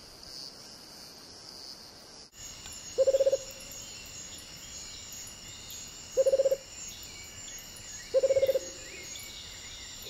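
A surucua trogon gives three short, low calls, each a rapid roll of notes, about three, six and eight seconds in, over a steady high-pitched insect drone.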